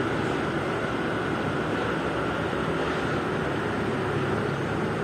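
Steady mechanical drone, like an engine or machine running, with a faint high hum over it; it does not change.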